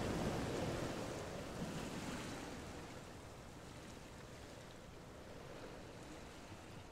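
Tea trickling through a metal tea strainer into a cup. The trickle fades out over the first two or three seconds and leaves a faint steady hiss.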